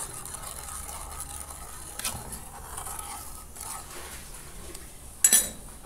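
Metal spoon stirring sugar into hot water in an aluminium pan, a faint scraping against the pan, with a brief louder scrape a little after five seconds.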